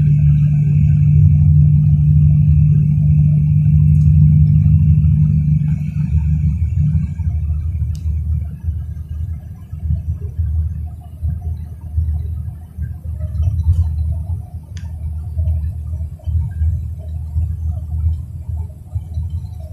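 Vehicle driving on a highway, heard from inside: loud, low road and engine rumble. A steady hum holds for the first several seconds, then gives way to an uneven, fluctuating rumble.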